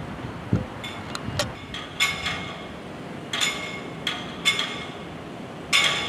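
Metallic clinks, about six of them, each ringing briefly, over a steady hiss of typhoon wind and rain.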